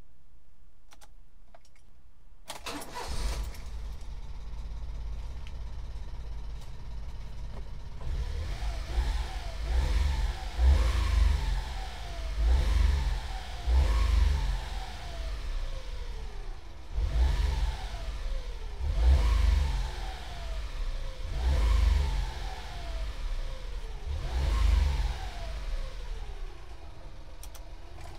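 Honda Acty kei truck engine starting about two and a half seconds in, idling, then revved about eight times, each rev rising and falling in pitch, before settling back near the end. It runs again after a new distributor and ignition coil cured an ignition fault that had kept it from starting.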